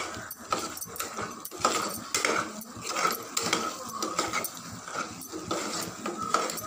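Steel spoon scraping and clicking against the sides and bottom of a pressure cooker as a thick mutton masala is stirred, with a short high whine coming and going.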